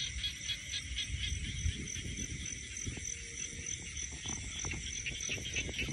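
Chorus of crickets and other night insects, a steady high trilling with rapid pulses, over a low rustling rumble.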